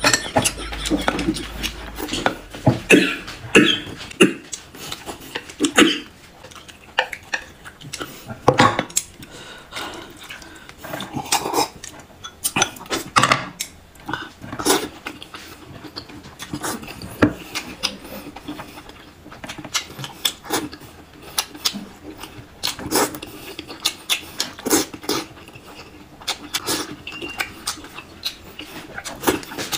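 Eating sounds: chopsticks clicking irregularly against a plate and bowl while boiled dumplings are chewed noisily.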